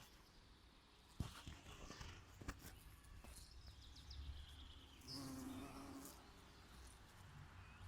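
Faint outdoor nature ambience with a few short bird chirps and sharp clicks, and a brief low buzz about five seconds in.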